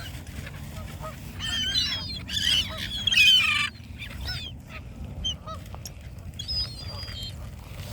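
A flock of waterbirds being fed seed, calling noisily, with a loud burst of overlapping calls from about one and a half to nearly four seconds in and scattered single calls around it.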